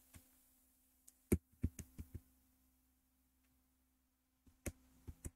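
Several short sharp clicks or taps, a quick cluster of about five a little over a second in and three more near the end, over a faint steady hum.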